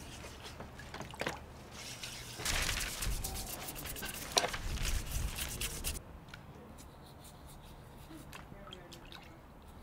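An excavated fragment being scrubbed by hand in a plastic bowl of water: wet rubbing and scraping with drips and small splashes, loudest for a few seconds in the middle, then fainter.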